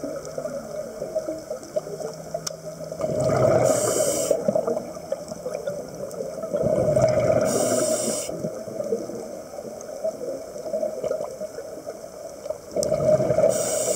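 Scuba diver breathing through a regulator underwater: three bubbling exhalation bursts, about three, seven and thirteen seconds in, each lasting a second or two, with quieter gurgling between.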